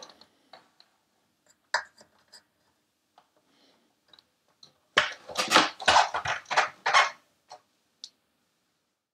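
Handling noise of the opened TRS-80 Color Computer 2's plastic case and an RF lead: scattered light clicks, then about two seconds of quick knocks and rattles starting about five seconds in, as the lead is pushed into the back and the machine is set down flat.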